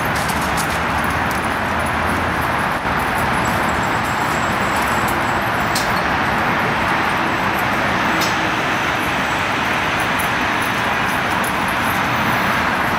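Steady hum of road traffic, an even wash of tyre and engine noise with no breaks.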